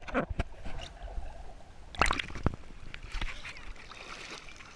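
Water sloshing and splashing against a GoPro's waterproof housing as it dips under and comes back up out of shallow water, with a cluster of sharper splashes about two seconds in.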